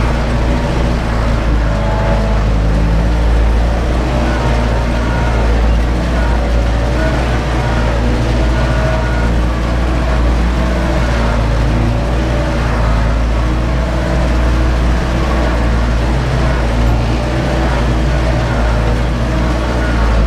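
Ursus 914 tractor's diesel engine running steadily under heavy load, heard from inside the cab, while it pulls a disc harrow through heavy fallow ground: a continuous deep drone with no change in pitch.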